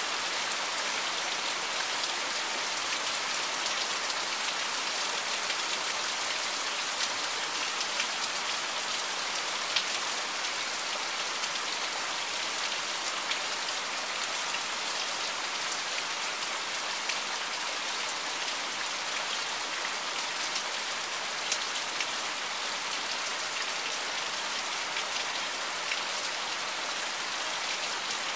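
Monsoon rain falling steadily on clay roof tiles: an even, dense patter with scattered sharper drop ticks.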